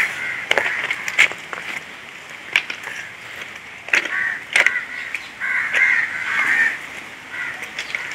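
Crows cawing again and again in short, harsh calls, with scattered sharp clicks between them.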